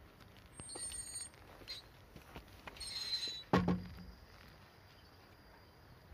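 Footsteps and handling noise from a handheld camera, with one sharp knock about three and a half seconds in and a few faint high chirps.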